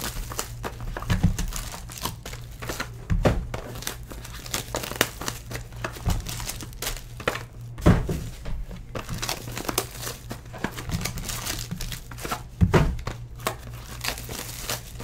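Foil-wrapped trading card packs crinkling as they are handled, pulled from their boxes and set down on the pile, with a few dull knocks of the boxes being set down.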